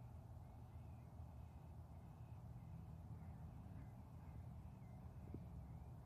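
Near silence: faint outdoor ambience, a low rumble with faint, high chirps repeating every second or so.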